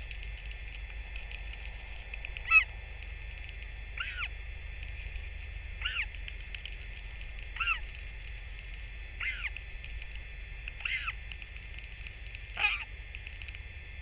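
A bird giving a short call that falls in pitch, repeated seven times at an even pace of about one every second and a half, over a steady high hum and a low rumble.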